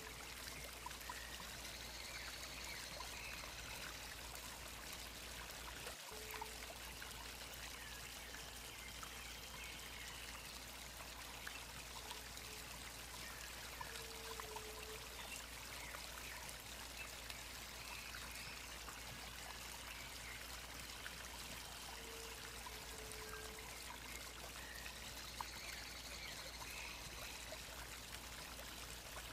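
Steady rush of running water, with faint calls recurring about every eight seconds: short low paired notes and higher drawn-out whistles.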